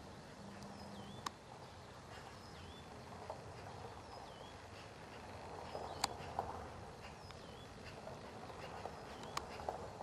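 A bird calling over and over, a short high note that slides down and hooks back up, roughly once a second. A few sharp clicks and knocks cut in, the loudest about six seconds in, over a low rumble.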